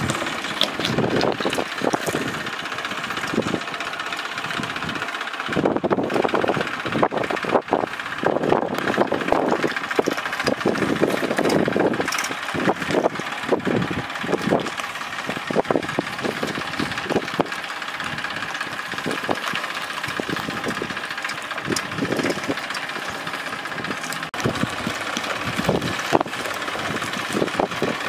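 Farm tractor's diesel engine running steadily as it hauls a trolley loaded with stone slabs, with frequent irregular knocks and rattles over the engine note.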